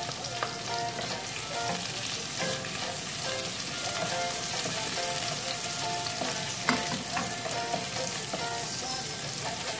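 Chopped onion and ginger sizzling in hot oil in a pan, with a steady frying hiss, while a wooden spatula stirs them and now and then scrapes or taps the pan.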